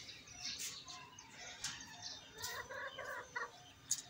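Aseel rooster pecking grain off hard dirt ground, with a few sharp pecking clicks. A short run of chicken clucks comes about two and a half to three and a half seconds in.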